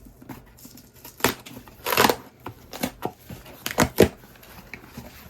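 Packaging being torn and cut open by hand: a handful of short, sharp ripping and scraping sounds, roughly a second apart.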